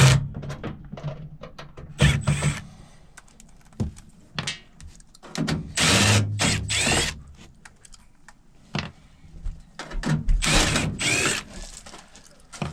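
Cordless drill running in several short bursts of about a second each, its motor whine rising and falling, with small clicks and knocks between bursts.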